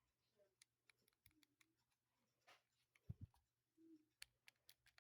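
Near silence: quiet room tone with a few faint scattered clicks and a soft knock about three seconds in.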